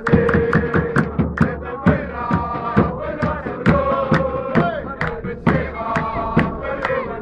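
A large crowd of football ultras chanting a song in unison, with a strong, steady beat about once a second and lighter beats in between.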